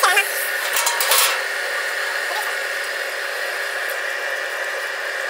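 Screw flight cold rolling machine running with a steady hum, with a brief metallic clatter about a second in.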